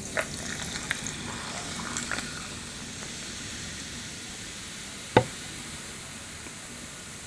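Steady sizzling hiss of food frying, with scattered small crackles and one sharp click about five seconds in.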